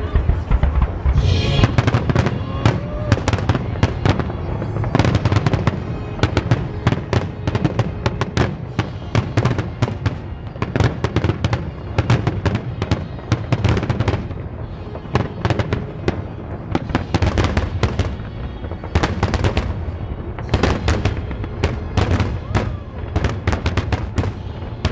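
Aerial firework shells bursting in a dense finale barrage: a rapid, unbroken run of bangs and crackles, many a second.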